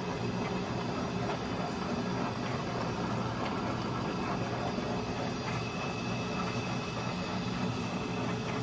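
Leblond Regal 19 x 102 engine lathe running under power, its spindle and headstock gearing turning with a steady mechanical whir. A faint high whine joins in about five and a half seconds in.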